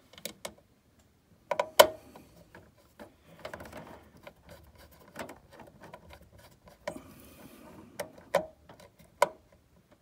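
Screwdriver tightening a quick-release M.2 standoff on a motherboard: irregular small clicks and scrapes of metal on metal, the loudest a little under two seconds in and a few more near the end.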